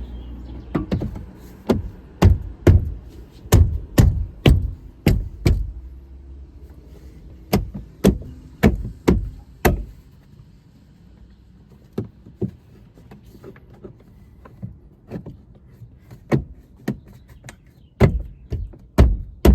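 A run of sharp, irregular knocks and clicks of parts and hand tools being handled and fitted while a truck door's power window assembly is put back together, with a quieter stretch in the middle and a quicker cluster of knocks near the end.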